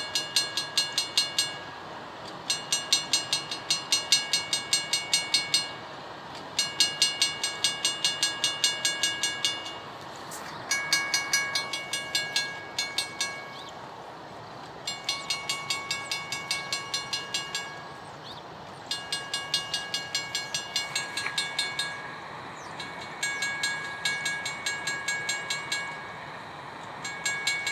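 Railroad crossing warning bell ringing rapidly, about four strikes a second. It cuts out and restarts every few seconds because the crossing signals are stuck cycling on and off, which the uploader puts down to a locomotive parked next to the crossing.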